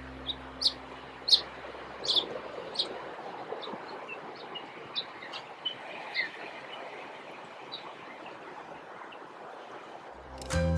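Birds chirping in short, scattered high calls over a steady background hiss of outdoor noise. A music bed fades out in the first few seconds, and music starts again near the end.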